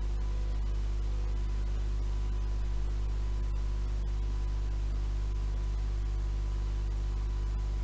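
Steady low mains hum with several overtones, the loudest sound here, over a faint steady high tone and hiss from a quiet stretch of a 7-inch reel-to-reel tape.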